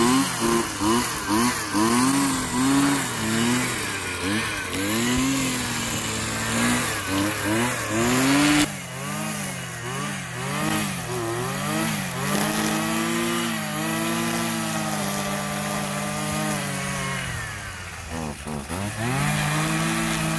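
Gas-powered string trimmer's small engine revving up and down as it cuts grass and weeds, in quick swells about once a second at first, then in longer, steadier stretches at high revs, dipping and picking back up near the end.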